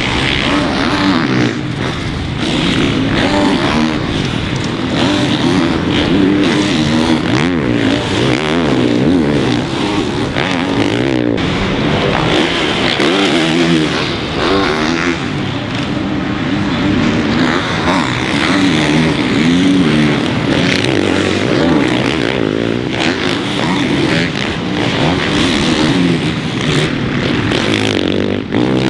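Several four-stroke supercross dirt bikes revving hard on the track. The engine pitch rises and falls repeatedly as the riders shift and back off, with more than one bike heard at once.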